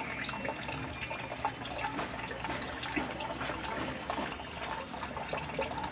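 Wet clothes being scrubbed by hand against a wooden washboard in a basin of soapy water: steady wet rubbing and sloshing with small splashes.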